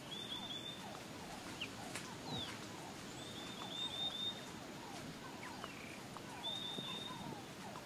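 A steady chorus of animal calls: many short downward-sliding calls overlapping, with a high rapid trill heard three times, at the start, in the middle and near the end.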